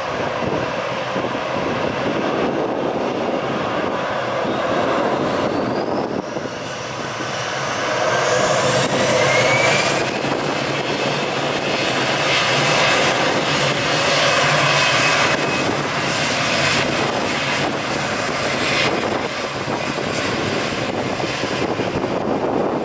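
AirAsia Airbus A320's jet engines spooling up to takeoff thrust: a rising whine over the roar for about five seconds, then a loud steady roar with a high whine that fades out near the end.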